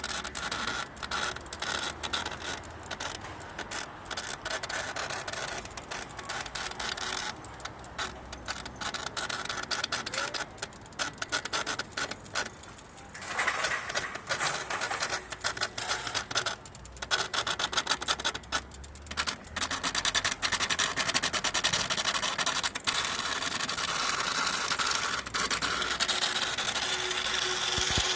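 Bridgestone Mariposa Mini's motor unit running with a rapid, irregular clicking and grinding clatter that grows louder about halfway through. The owner takes it for a primary gear with its teeth worn smooth, the noise at its terminal stage.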